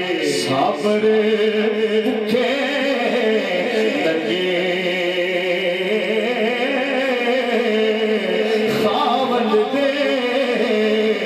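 A man reciting a naat unaccompanied, singing long, slowly wavering held notes into a microphone.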